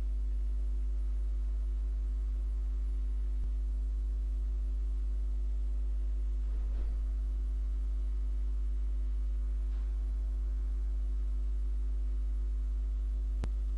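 Steady electrical hum on the recording: a low drone with a row of fainter steady tones above it. It is broken by two faint clicks, one a few seconds in and one near the end.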